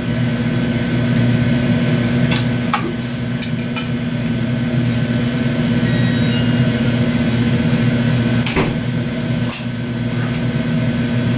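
Steady low hum and rush of gas-air glassworking burners running while a glass neon tube is preheated in the flame to keep it from cracking. A handful of sharp clicks come between two and four seconds in, and two more near nine seconds.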